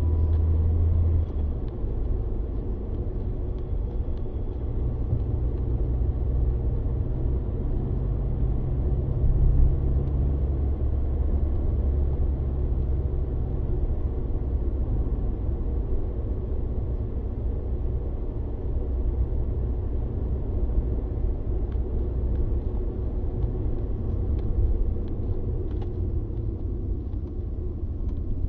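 A moving car's engine and tyre noise heard inside the cabin: a steady low rumble. The low drone shifts in pitch about a second in and again around ten seconds in.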